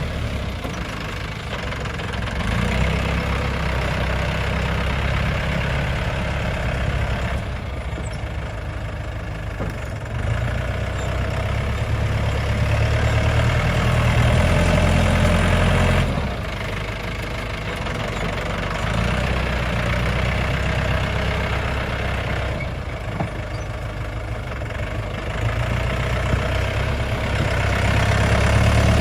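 Tractor engine running under varying load while working as a bulldozer, its sound dropping and swelling again several times.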